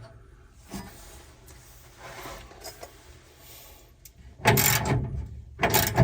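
Faint handling of small metal lock parts, then, about four and a half seconds in, two loud rasping strokes of a ratchet wrench tightening the nut that holds the tool chest's drawer lock.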